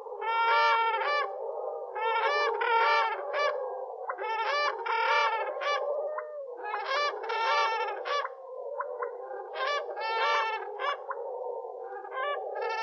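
Crane calls, digitally distorted and layered with echo: about half a dozen bursts of pitched calls with many overtones over a continuous wash of overlapping calls.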